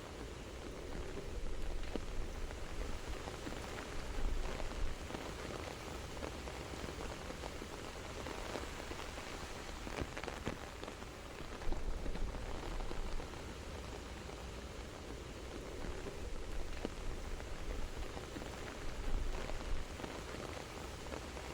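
Soft rain falling on an umbrella canopy: a steady hiss of drops with scattered individual drop ticks, swelling louder now and then.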